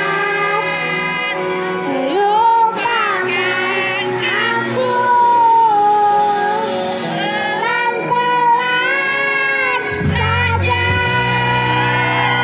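A young girl singing a song into a microphone over a PA, with long held notes, over musical accompaniment; deeper bass notes come in near the end.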